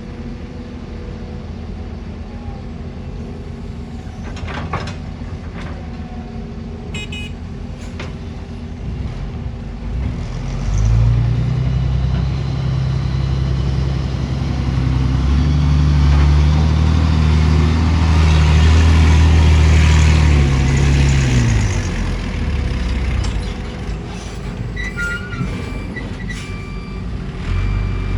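Heavy diesel engine of earthmoving machinery running, revving up about a third of the way in, holding high under load for about ten seconds, then settling back down. A few sharp metallic clicks come early on, and short high beeps near the end.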